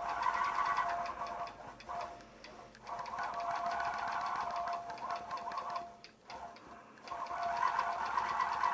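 Gammill longarm quilting machine stitching at a steady, rapid pace as it is guided along a ruler. The machine stops briefly about two seconds in and again around six seconds in, then starts up again.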